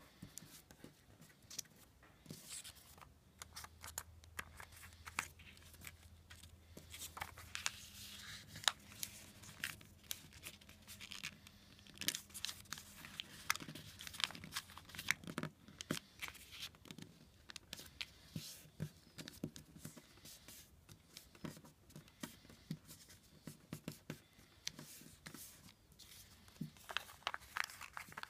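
Thin origami paper being folded and creased by hand: soft rustling and crinkling, broken by many short, sharp crackles as the folds are pressed flat.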